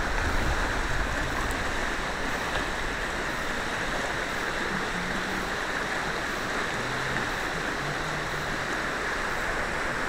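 Shallow stream rushing over its stony bed: a steady water noise, heard through a keychain micro camera's small built-in microphone.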